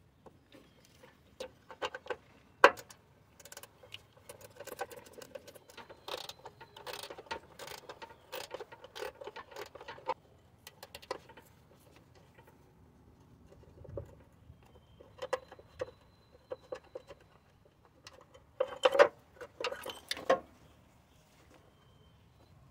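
A 10mm ratcheting wrench clicking in quick runs as the coolant reservoir bracket bolts are worked loose, in two spells with a pause between them. A single sharp click about two and a half seconds in is the loudest sound.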